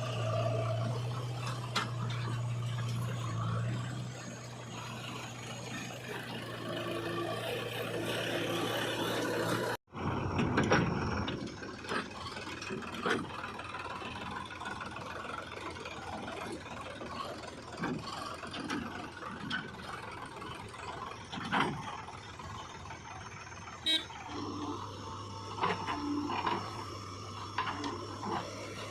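Heavy-machinery diesel engine running with a steady low hum. After a sudden break about ten seconds in, a scatter of sharp knocks and rattles follows, and the engine hum returns near the end.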